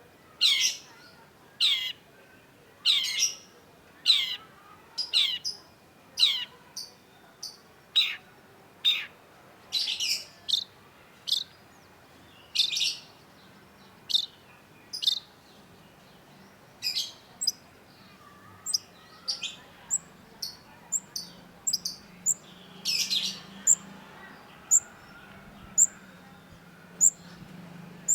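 Long-tailed shrike calling: harsh calls that sweep down from high to lower pitch, repeated about once a second. About two-thirds of the way through they give way to short, very high, sharp notes at about two a second.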